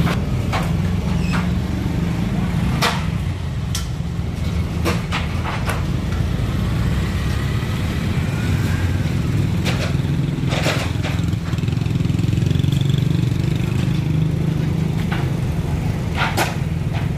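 Boom truck's diesel engine running steadily while the crane holds a utility pole, with scattered short knocks and clicks of work on the pole.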